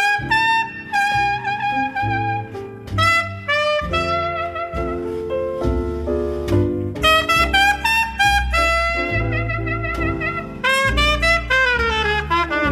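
Slow jazz ballad in an instrumental passage: a trumpet plays the melody with bent and wavering notes over piano and drums.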